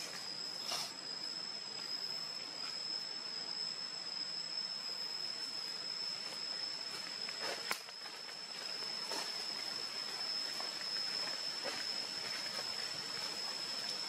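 Steady outdoor background: an even hiss under one constant high-pitched whine, with a few faint clicks about a second in and around the middle.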